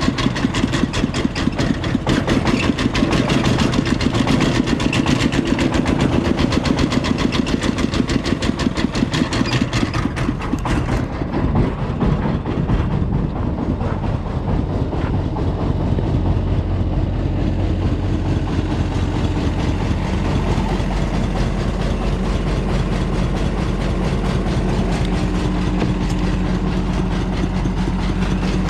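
Diesel engines of a Kobelco excavator and a công nông farm truck running at a worksite. For about the first ten seconds there is a fast, even chugging beat, and after that a steadier, deeper engine hum.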